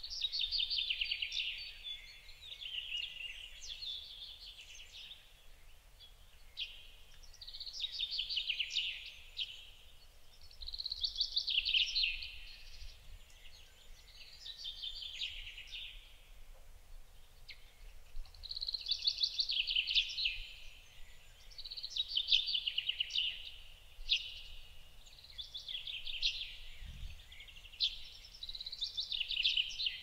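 A songbird singing the same short phrase again and again: a quick run of high repeated notes ending in a falling flourish, about every three to four seconds.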